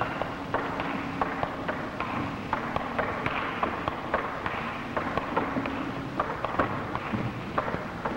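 Table tennis rally: the ball clicks sharply off the bats and the table, about two to three hits a second in an irregular rhythm, over a steady hiss.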